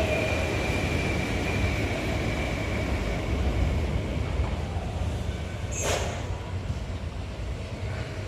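Steady low rumble of vehicles crossing the bridge overhead, with a faint high whine that fades over the first few seconds and a short sharp noise about six seconds in.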